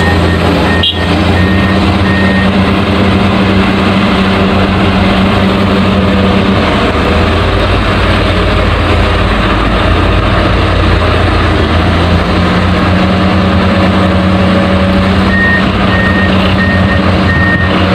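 Heavy diesel vehicle engine running steadily with a deep hum, a reversing alarm beeping in a short series near the start and again near the end.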